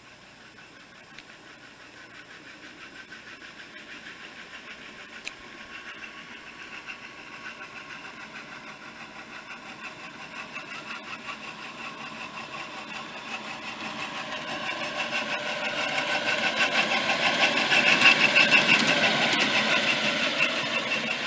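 A 5-inch gauge Class 37 model diesel locomotive running along the track, growing louder as it approaches, loudest as it passes close by near the end, then starting to fade. Its running sound has a fast, even pulse.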